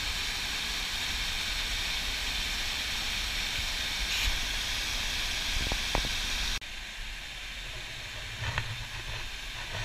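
Rushing whitewater of a stream cascade, a steady full hiss. About two-thirds of the way through it cuts abruptly to a quieter, softer rush of running water.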